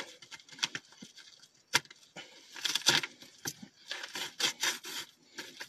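A toy's plastic packaging being handled and torn open: scattered crinkles, short rips and small clicks.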